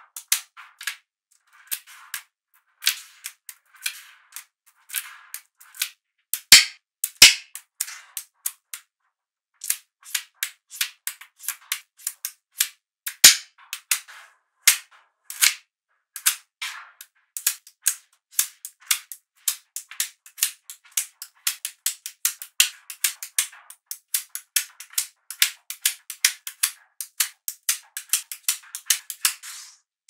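Small magnetic balls clicking and snapping together one after another: sharp, light clicks at an irregular pace, coming faster and closer together over the second half.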